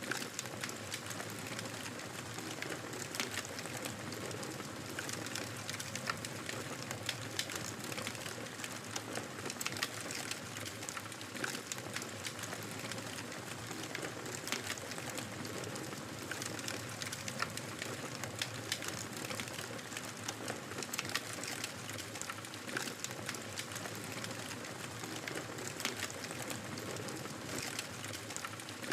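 Wood fire in a fireplace crackling steadily, with a constant hiss and frequent small pops and snaps.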